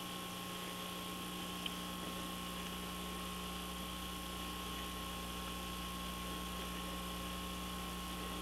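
A steady, faint hum holding a few unchanging tones, with one small tick near the start; no other event breaks it.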